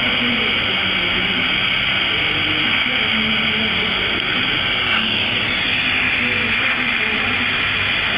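Glassblowing bench torch burning with a steady hiss. The hiss shifts slightly about five seconds in.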